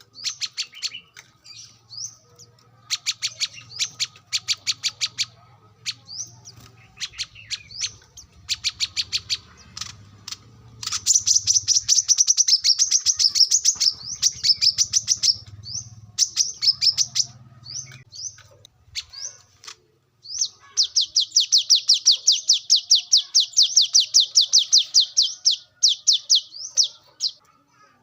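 Brown-throated sunbird (kolibri kelapa) singing: short bursts of rapid, high chirping notes, with two long, fast trills that are the loudest parts, about 11 and 21 seconds in.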